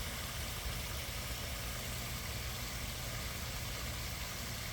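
Steady rush and splash of water from a koi pond waterfall, with a constant low rumble underneath.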